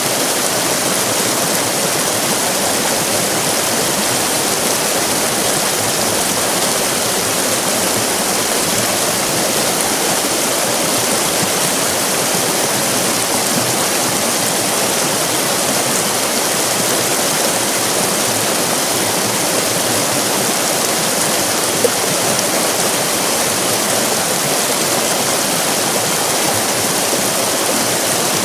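River rapids: fast-flowing water rushing and splashing in a steady, dense wash with no let-up.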